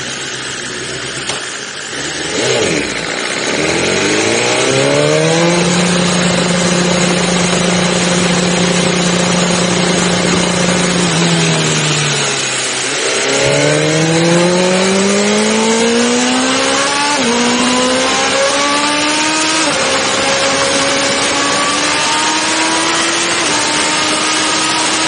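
BMW S1000RR superbike's inline-four engine, heard from a camera on the bike, pulling away with a rising rev. It holds one steady pitch for several seconds, then falls off. It then accelerates again, the revs climbing and dropping suddenly at each upshift, twice in quick succession and once more near the end.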